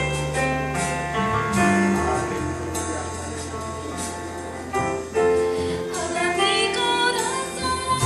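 Worship music with sustained bass notes and held instrument chords, and a singing voice coming in about six seconds in.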